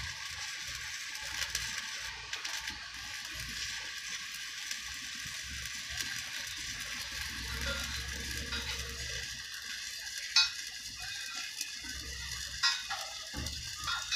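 Electric arc welding on a steel structure: a steady, fizzing crackle from the arc, with two sharp ticks in the last few seconds.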